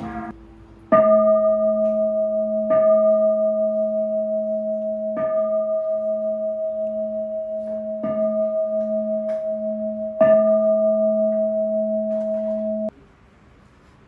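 Buddhist bowl bell struck about five times, each strike renewing a steady ringing tone, with a couple of lighter taps between. The ringing cuts off suddenly a little before the end.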